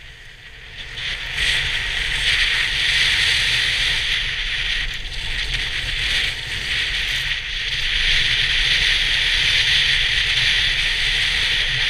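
Skis or board edges scraping and hissing over firm groomed snow at speed, with wind buffeting the camera microphone. The scraping swells about a second in and eases briefly a couple of times, as the edges bite in the turns.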